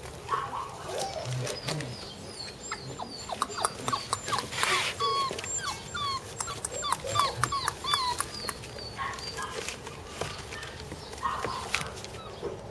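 Border collie puppies whimpering in many short high squeaks, thickest through the middle, over the clicking and rustling of claws on a plastic tub and shredded paper.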